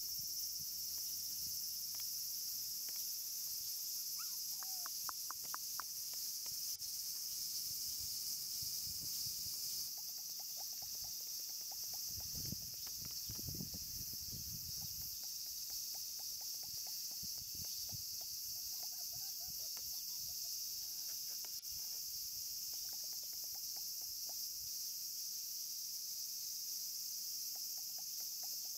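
Insects chirping in a steady, high-pitched chorus, with fainter rapid chirps pulsing in and out beneath it.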